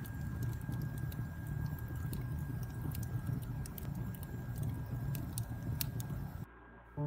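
Campfire crackling: scattered sharp pops and snaps over a steady low rumble, cutting off about six and a half seconds in.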